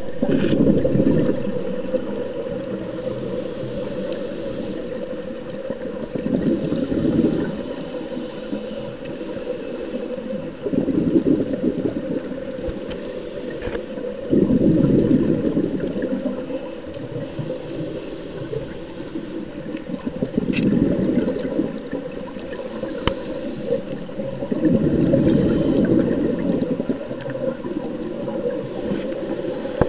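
Scuba diver breathing through a regulator underwater: a gurgling rush of exhaled bubbles about every four to five seconds, six times in all, over steady underwater noise, with a few faint clicks.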